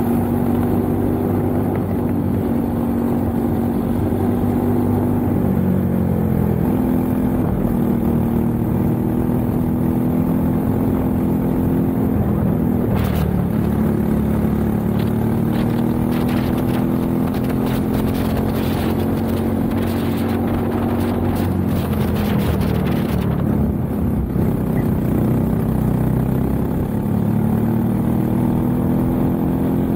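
Racing kart engine heard from a microphone on the kart, running hard through a lap: its pitch drops as the kart slows for corners, around a quarter of the way in and again near the middle and two-thirds of the way through, then climbs back as it accelerates. Scattered sharp knocks and rattles come in through the middle stretch.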